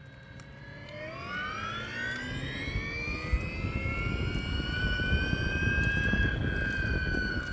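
Piaggio Vespa Elettrica electric scooter's motor whining under way. The whine rises in pitch as the scooter accelerates from about a second in, then holds nearly steady, with road and wind rush growing louder underneath.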